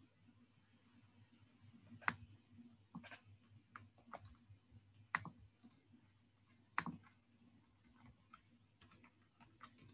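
Computer mouse and keyboard clicks: a dozen or so sharp, irregularly spaced clicks, the loudest about two, five and seven seconds in, over a faint steady hum.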